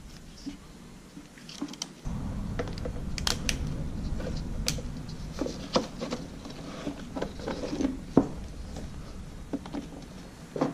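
Small clicks, snaps and scrapes of hand work as a clamp is fitted back onto a RedMax backpack blower's tubing, with a low steady hum setting in about two seconds in.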